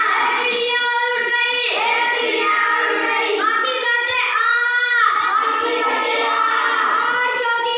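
A child singing a song, with some notes held long and others sliding.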